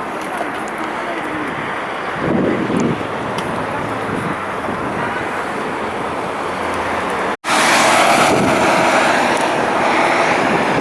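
Midtown street ambience: passing car traffic with wind buffeting the microphone. The sound drops out for an instant about seven seconds in, then comes back louder.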